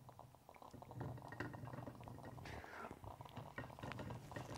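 OTTO stovetop espresso maker, still hot and under pressure with the heat off, bubbling and crackling faintly, with a brief soft hiss about two and a half seconds in.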